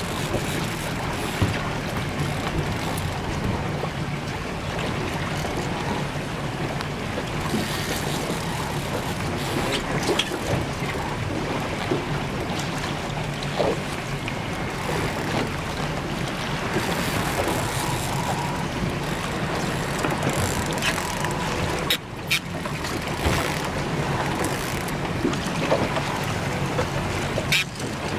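Boat engine running steadily under wind and water noise, with a few short sharp clicks now and then.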